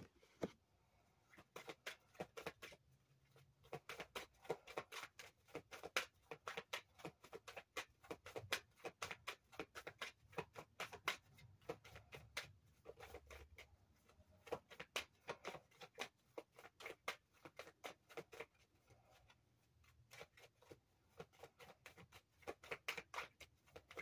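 A deck of cards being shuffled by hand: quick runs of soft flicking clicks as the cards riffle and slap together, broken by a few short pauses.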